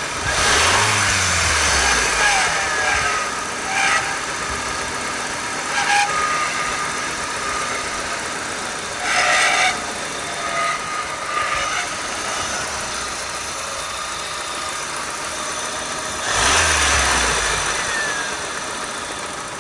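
1994 Honda Integra engine idling, with two revs, one at the start and one near the end, and a few shorter swells between them. The running engine carries an extraneous noise that the owner cannot identify.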